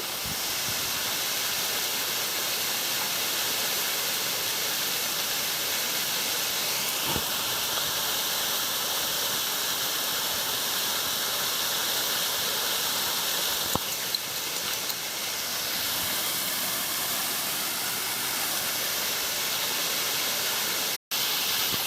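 Water of a small cascading waterfall falling over rocks: a steady rushing hiss, broken by a brief dropout about a second before the end.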